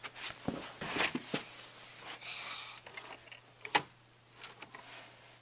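Scattered knocks, clicks and rustles of objects being handled, with one sharp knock a little under four seconds in.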